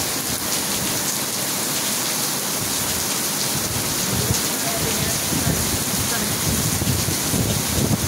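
Heavy rain pouring down onto pavement and a roof, a steady dense hiss of the downpour. An uneven low rumble joins it from about halfway through.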